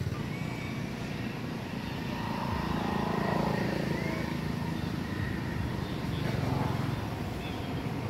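Low engine rumble of passing road traffic, swelling through the middle and easing off near the end.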